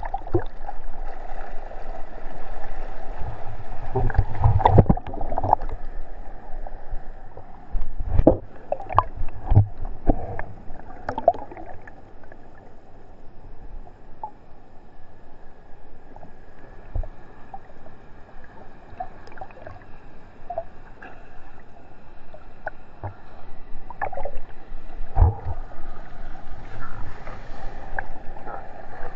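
Seawater sloshing and slapping against a GoPro Hero3's waterproof housing at the surface in the surf. It is a continuous wash broken by sharp splashing knocks, in clusters about four to five seconds in, around eight to ten seconds, and again near twenty-five seconds.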